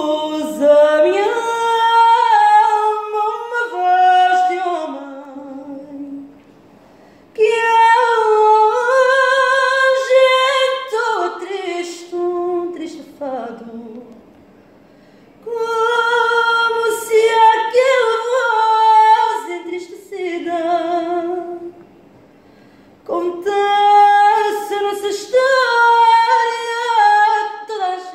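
A woman singing fado unaccompanied, her voice alone in four long phrases with short pauses for breath between them, the held notes wavering with vibrato.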